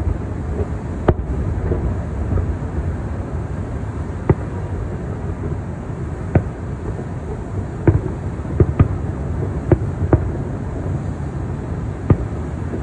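Distant aerial firework shells bursting: about ten sharp booms at irregular intervals, some in quick pairs, over a steady low rumble.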